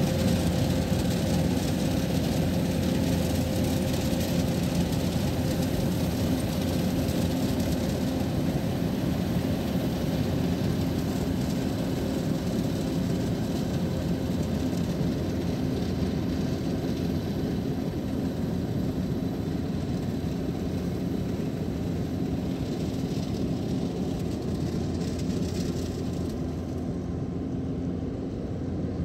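Kubota DC-105X combine harvester's diesel engine and threshing machinery running steadily under load as it cuts lodged rice, growing slowly fainter towards the end.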